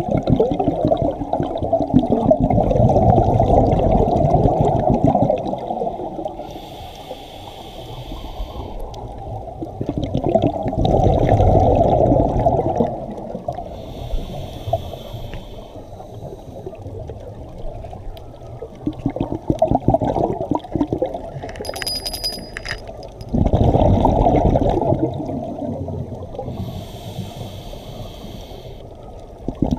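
Scuba diver breathing through a regulator underwater: a hissing inhale, then a long bubbling rush of exhaled air, repeating every several seconds. A brief high tone sounds about three-quarters of the way through.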